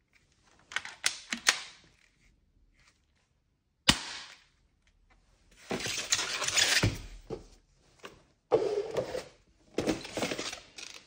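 Handling noise from a Tokyo Marui Automag 44 spring airsoft pistol and its packaging: a quick run of sharp clicks about a second in, a single click near four seconds, then several stretches of rustling and scraping.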